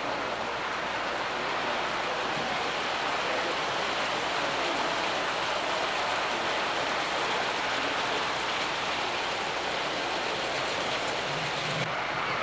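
Steady rushing noise, with no distinct tones, of an O scale model freight train rolling along the track across a layout trestle. The highest part of the hiss drops away near the end.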